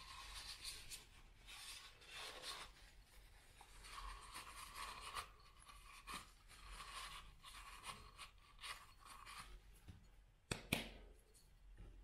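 Faint rubbing of a paper napkin wiping out the metal body of a manual coffee grinder, with two short sharp knocks near the end.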